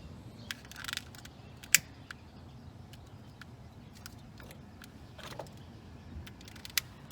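Scattered sharp clicks and knocks of hands working at a charcoal grill with a bottle of lighter fluid, the loudest about two seconds in, with a couple of short hissy swishes, over a faint low hum.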